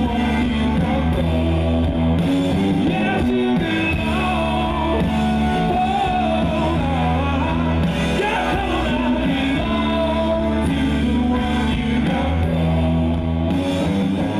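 Rock band playing live: electric guitars, bass and drums with a male voice singing.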